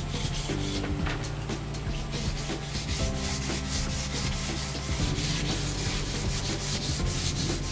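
Hand-sanding the timber arms of a small wooden vise, abrasive rubbed back and forth along the wood in quick repeated strokes.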